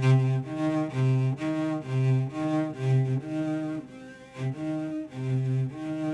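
Erhu-like keyboard sound playing a slow improvised solo line: a string of sustained bowed-string notes in a low register, each about half a second long and swelling and fading.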